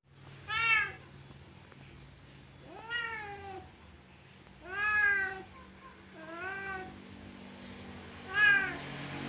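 Domestic cat meowing repeatedly: five separate meows, each rising and falling in pitch, spaced about one and a half to two seconds apart, over a low steady hum.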